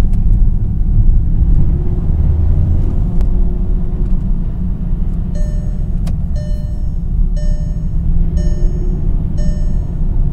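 Car engine and drivetrain rumble heard inside the cabin while driving, with a rattle-chatter the owner hears at light throttle since a DXD Stage 3 clutch went in; he thinks it is the clutch hydraulic line knocking against the chassis leg. From about five seconds in, a short beeping tone repeats about once a second.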